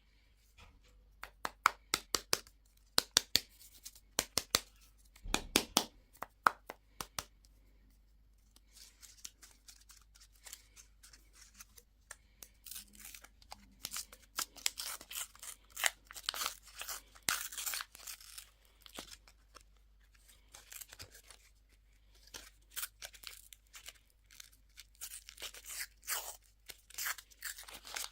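Candy and toy packaging being opened by hand: a run of sharp clicks and snaps, then a long stretch of crinkling and tearing of wrappers.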